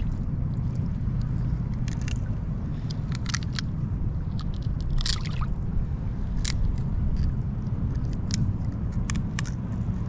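Knife cutting into a pompano, making many short wet squishing and crunching scrapes as it works through flesh and bone along the backbone, over a steady low rumble.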